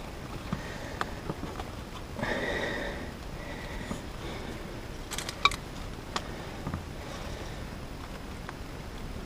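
A man breathing and sniffing as he strains at close work, with a few light clicks and taps as the air-line fitting and a screwdriver are worked through the hole in the suspension spring seat. One longer, louder breath comes about two seconds in.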